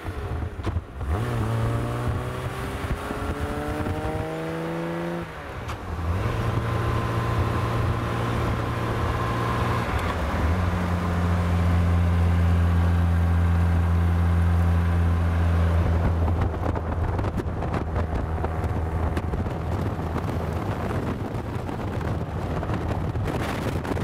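E-Type Jaguar's straight-six engine heard from inside the open car as it accelerates: the note climbs, drops at a gear change about a second in and again about five seconds in, then holds steady while cruising.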